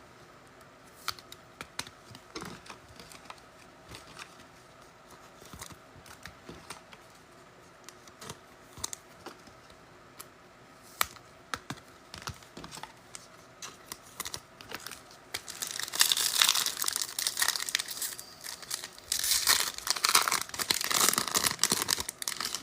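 Faint clicks and taps of trading cards being handled, then, from about fifteen seconds in, a card pack's wrapper torn open and crinkled in two loud spells.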